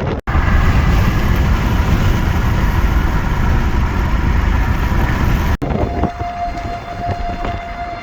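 Strong wind buffeting the microphone with a heavy low rumble. After a sudden cut near the end, a steady single-pitch wail from an outdoor tornado warning siren comes in over lighter wind.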